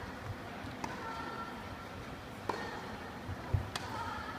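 Tennis rally: the ball is struck by rackets three times, a second or more apart, with a duller thud of the ball bouncing just before the last hit.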